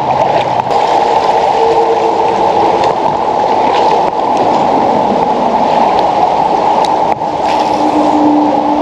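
Fast-moving river water rushing and gurgling steadily close by, with a few faint small clicks.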